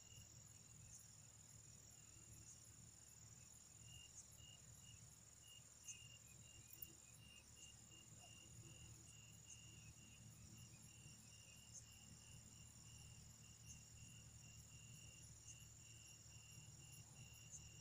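Faint chorus of night insects: a steady high trill, with a second insect calling in short, regularly repeated pulses.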